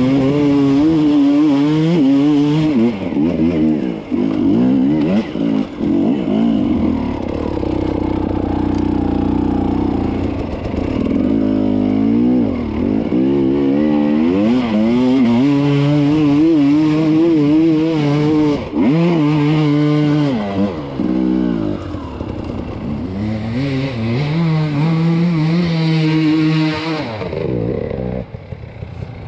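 Enduro dirt bike engine running hard on the throttle, its pitch rising and falling constantly as it revs up and down.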